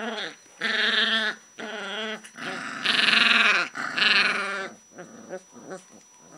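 Alaskan Malamute puppies whining as they mouth each other in play: a run of short pitched calls that bend in pitch, loudest and harshest about halfway through, then trailing off into fainter, shorter whimpers near the end.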